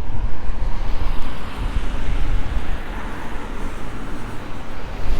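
Wind buffeting the microphone in uneven gusts, with road traffic going by on a city street, swelling as a car passes through the middle.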